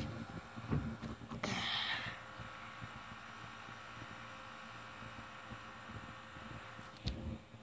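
Faint handling noise of a hand-held phone microphone: low rumble and a few soft thumps, with a brief hiss about a second and a half in and a knock near the end.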